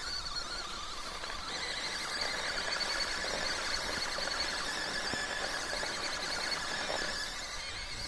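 The electric motor and drivetrain of a full-metal upgraded MN99S 1/12-scale RC crawler whining steadily as it crawls over rocks. The whine is high-pitched, with several tones together, and eases a little near the end.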